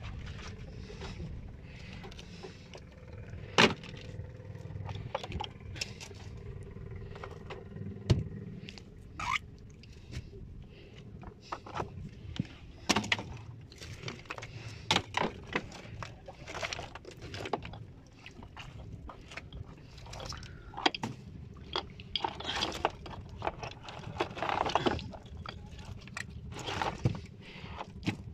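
Hard shells and rocks clattering and scraping against each other in a plastic basin as the shellfish catch is handled, giving irregular sharp clicks and knocks, several of them loud.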